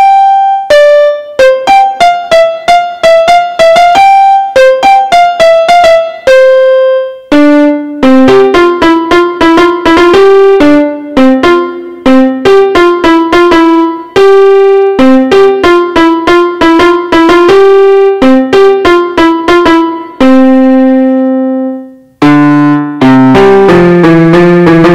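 Yamaha PSR-F51 portable keyboard playing one of its piano voices, taken straight from its line output: a melody of single notes in the upper register that moves lower about seven seconds in. After a short gap near the end, a fuller passage follows with low accompanying notes under the tune.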